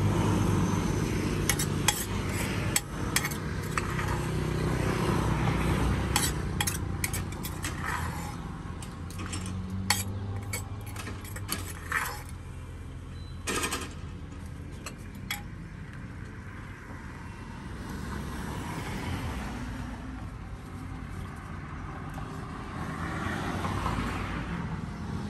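Kitchen utensils clinking and knocking against dishes and bowls, irregularly and mostly in the first half, over a steady hum of street traffic.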